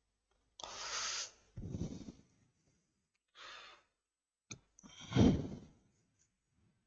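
A man breathing out audibly into a close headset microphone: four separate breathy exhales with silence between them, the loudest, like a sigh, about five seconds in.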